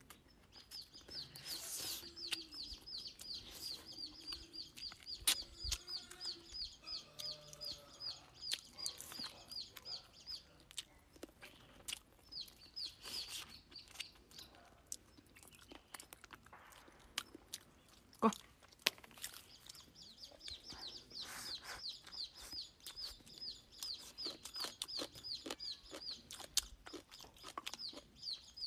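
A bird chirping outdoors in long runs of short, high, falling chirps, about four or five a second, with a pause in the middle. Under it, close clicking and smacking eating sounds as someone chews fish.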